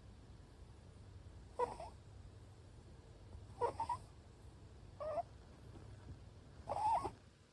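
Short-legged Munchkin cat snoring in its sleep: a short, high-pitched squeaky snore four times, about every two seconds, over a faint low hum.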